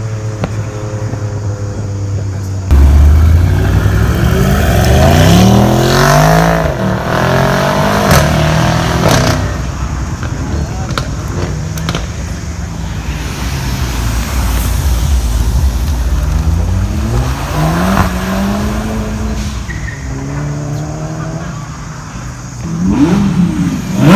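Car engines revving and accelerating away one after another, the engine note rising in pitch with each pull, with a few sharp exhaust pops between about six and nine seconds in. The first car comes in suddenly and loudly near three seconds in, and another pulls away near the end.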